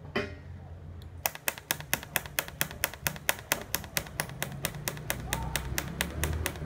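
Automatic weld-ripple pulse unit on a TIG welder clicking at an even rate, about four sharp clicks a second, starting about a second in, over a low steady electrical hum.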